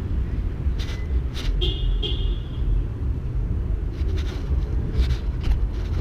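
2018 SE Bikes Big Flyer BMX being ridden over city pavement, heard as a steady low rumble of wind on the microphone and tyre noise. A few sharp knocks come through, and a brief high squeal sounds about a second and a half in.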